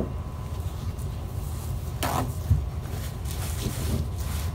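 Paper towel handling and wiping on a cable laid over plastic garbage-bag sheeting: a short rustle about two seconds in, a soft knock just after, then faint rubbing over a steady low rumble.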